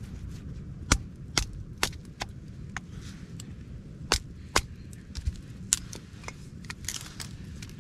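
Small sticks being snapped and split into kindling: a dozen or so sharp cracks at uneven intervals over a low, steady background noise.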